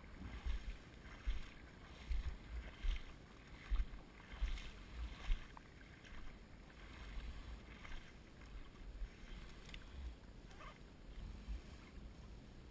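Shallow bay water swishing and splashing in a regular rhythm, a little faster than one stroke a second, as someone wades through it, over a low irregular rumble. The splashing grows fainter after about six seconds.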